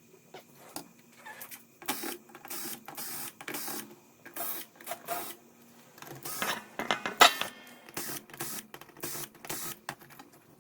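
Small electric screwdriver whirring in about a dozen short bursts, driving or backing out screws while the circuit boards are moved between the TVs; the loudest burst comes a little past the middle.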